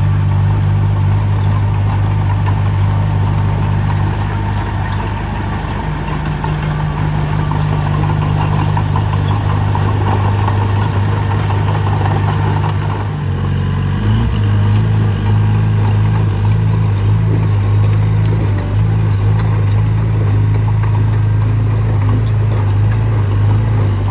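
Small construction machine's engine running steadily in a low drone, with light clattering over it; about thirteen seconds in the drone shifts in pitch and gets slightly louder.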